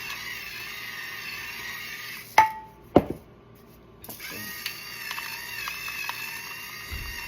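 Soft background music, broken about two and a half seconds in by two sharp clinks of kitchenware about half a second apart, the first ringing briefly. The music drops out after the clinks and comes back a second or so later with a few light taps.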